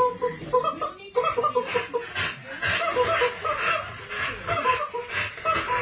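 Squeaky rubber chicken toy being chewed and squeezed by a dog, giving short squeaks at the same pitch over and over, a few a second.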